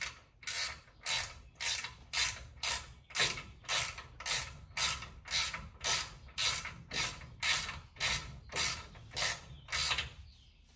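Hand ratchet turning a brake caliper's Allen-head slide-pin bolt in: the pawl clicks in a short burst on each back-swing, about two strokes a second, and stops near the end.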